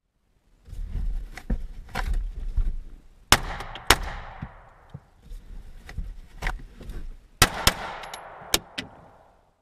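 Pistol fired from inside a pickup truck's cab, out through the open side windows: a string of shots. The loudest come in two quick pairs about four seconds apart, with one more near the end, each leaving a short ring-out.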